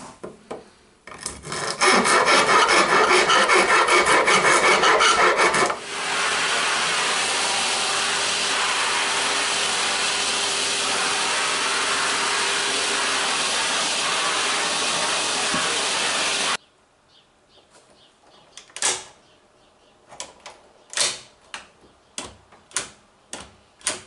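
A hand file rasping in quick strokes to enlarge a lock hole in a metal door edge. Then a vacuum cleaner runs with a steady hum for about ten seconds and cuts off suddenly. After it comes a string of sharp clicks and knocks.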